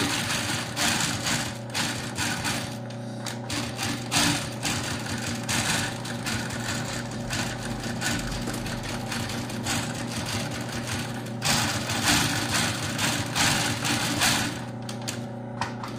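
Post-bed industrial sewing machine running, with a steady motor hum and rapid needle strokes. It is stitching the lining around the edge of a sneaker upper.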